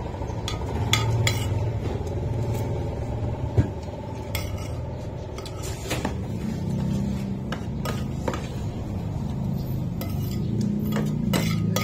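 Spoon and plates clinking and clattering now and then on a table during a meal, over a steady low hum.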